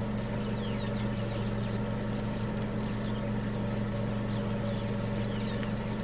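A steady low hum, with small birds chirping faintly now and then.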